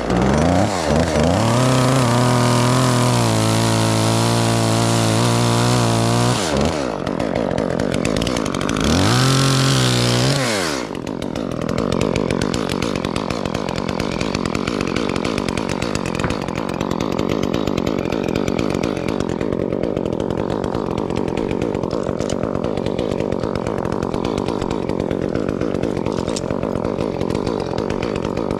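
Chainsaw engine held at full throttle for about six seconds, easing off, revving up again briefly, then idling steadily for the rest.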